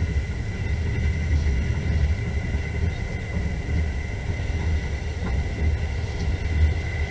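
Passenger train running, heard from inside the carriage: a steady low rumble of wheels and carriage, with a thin steady high tone over it.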